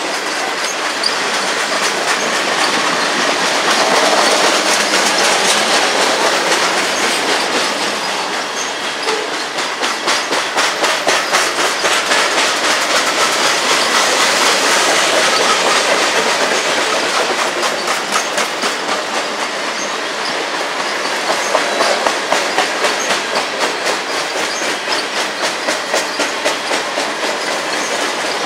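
Covered hopper cars of a freight grain train rolling past close by, a steady rumble of wheels on rail with a rhythmic clickety-clack of the wheels over the track.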